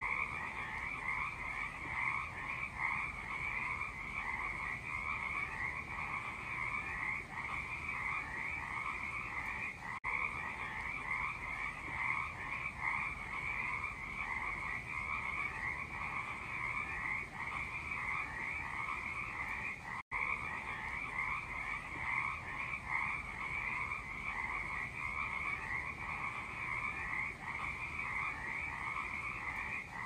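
A dense, unbroken chorus of many frogs calling at once, their calls massed at two pitches, one higher and one lower: a spring frog chorus.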